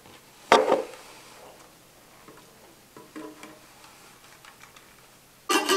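Long-necked lute with tied-on frets: a single sharp, loud strike of its strings about half a second in, a few faint plucked notes around three seconds, then near the end it starts playing in quick plucked notes.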